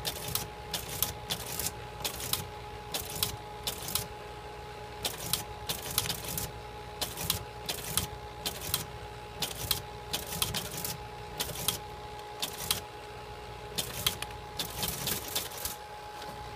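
Teletype Model 28 ASR being typed on: irregular mechanical clacks of its keys and mechanism, a few a second with some quick runs, over a steady hum. The clacking stops about a second before the end.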